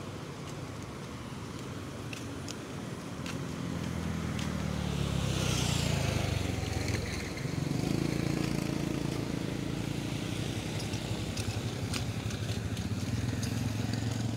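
Motorcycle engine running, getting louder about four seconds in, with a brief rushing sweep a couple of seconds later.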